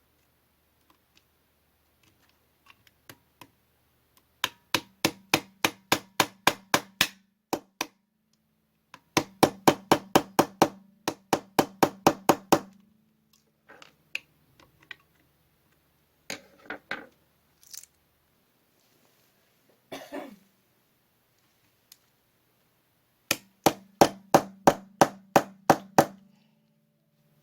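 Sharp clicks in three runs of about a dozen, roughly four a second, from working on a Umarex VP9 CO2 BB pistol during disassembly, with softer handling noises between the runs.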